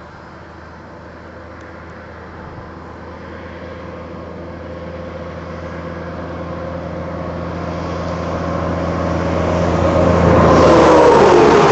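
A road vehicle on the highway approaching, its engine hum and tyre noise growing steadily louder, then passing close near the end with its pitch dropping.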